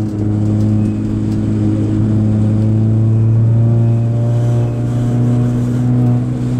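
Ford Fiesta ST's turbocharged 1.6-litre four-cylinder engine heard from inside the cabin, pulling under load at steady revs.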